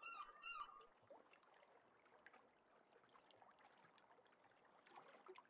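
Near silence, with a faint run of short repeated high-pitched notes dying away in the first second.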